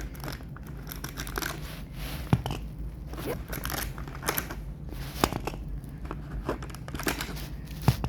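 Packaging crinkling and rustling as small toy cars are unboxed and handled, with a few sharp clicks or knocks, three of them standing out.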